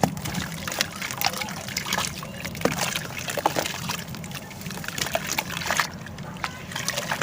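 Dry sand-cement pieces crumbling and being dipped in water: a dense run of small crackles and clicks with trickling and sloshing water.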